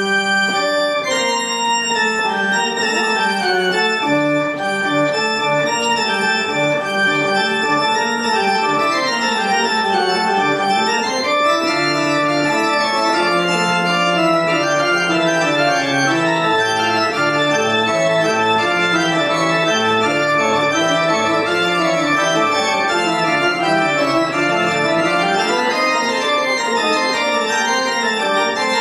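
Church pipe organ playing a piece. It starts abruptly with a full chord, then moves through fast runs of notes that sweep up and down over a moving bass line.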